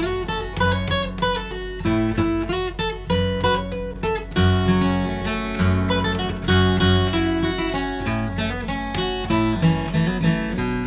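Solo acoustic guitar picking a melodic introduction, mixing single plucked notes with strummed chords at a steady tempo.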